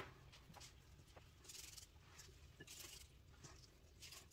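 Near silence: room tone with a few faint, short soft rustles.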